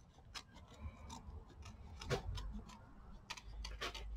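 Small scissors snipping paper close along the edge of a chipboard ornament: a run of faint, irregular snips and clicks, the sharpest about two seconds in and several more near the end.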